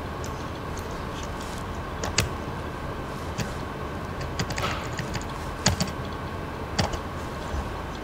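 A handful of sharp computer mouse clicks, scattered irregularly, over a steady background hum.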